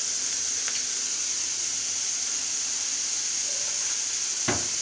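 Chopped onions, dried red chilies and curry leaves sizzling in hot oil in a pan on high flame, a steady frying hiss. There is a faint click about a second in and a short knock near the end.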